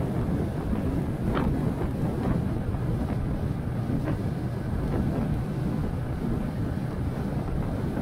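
Wind rushing over a motorcycle-mounted microphone while riding at road speed, with the motorcycle's engine and road noise underneath as a steady low rumble.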